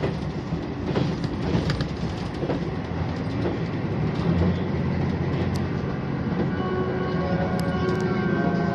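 HOT7000-series diesel railcar running at speed, heard from the front car: a steady rumble with clicks as the wheels cross rail joints, and a steady whine joining in over the last couple of seconds.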